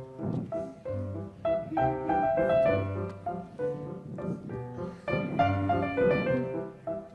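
Live instrumental music: a quick run of short, clearly pitched notes over a repeating low bass line.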